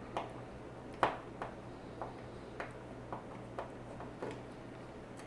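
Small bit screwdriver turning out a stiff corner screw of a 2.5-inch SSD's metal casing, making faint sharp clicks about twice a second.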